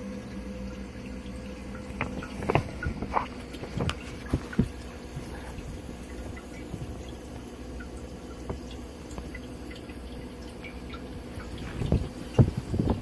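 Water dripping and trickling over a steady hum from a floating ultrasonic humidifier and fan running in a bucket of water. A few short knocks and taps come about two to five seconds in and again near the end.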